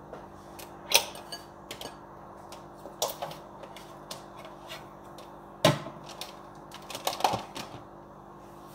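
Plastic clicks and knocks as a small electric blender is taken apart by hand: the motor unit lifted off the plastic jar and set down on the counter. There are a few separate clicks, one louder knock a little past halfway, and a quick cluster of clicks near the end.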